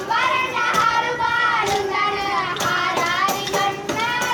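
Song with a singing voice accompanying a stick dance, with occasional sharp clacks of the dancers' short wooden sticks struck together.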